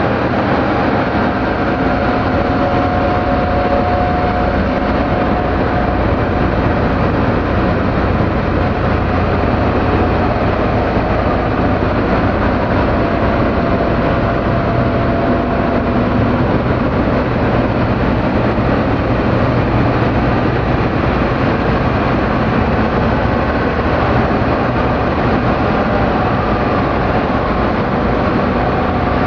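Dark ambient noise music: a dense, steady wash of noise, heaviest in the low end, with faint held tones coming and going.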